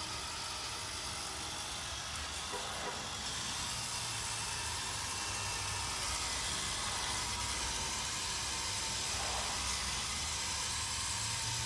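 Cordless drill running steadily, spinning a 500-grit sanding pad dry against a plastic headlight lens to cut off the oxidised surface layer, a continuous hissing grind over the motor's hum.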